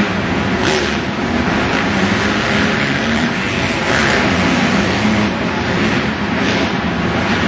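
Dirt bike engines racing in a 250-class motocross main, their note rising and falling as the bikes rev, with a few brief louder swells.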